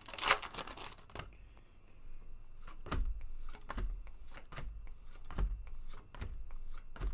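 Trading-card booster pack wrapper crinkling and tearing open for about the first second, then quieter rustling, soft rubs and light knocks of the cards being handled and flipped through.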